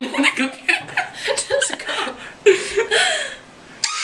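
People chuckling and giggling in short, quick bursts, with a louder laugh about two and a half seconds in.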